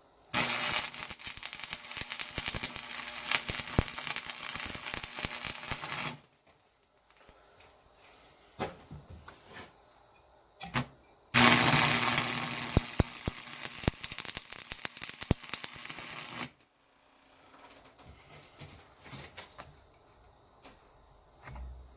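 Stick welding with a 6013 rod: two runs of steady arc crackle and sizzle, the first about six seconds long and the second about five, with a few faint clicks in the pause between them.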